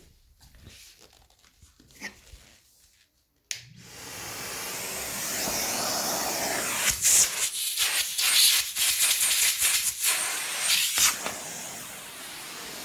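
Allegro Champion MUA50 central vacuum switching on with a click about three and a half seconds in, then a steady rush of suction air through the hose and inlet, with choppy surges in the airflow in the middle.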